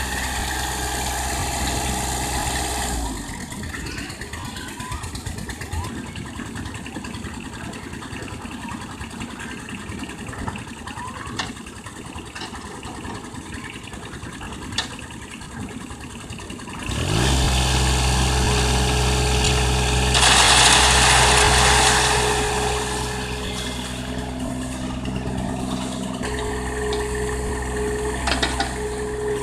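Excavator's diesel engine running: it drops to a lower rumble about three seconds in, then revs up with a rising pitch after the middle and holds at high speed. A loud rushing noise comes in for about two seconds while the engine is revved.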